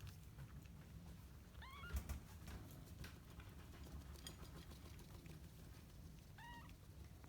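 Five-day-old kittens mewing faintly: two short high mews, one about two seconds in and one near the end, over low rustling with a soft bump around the first mew.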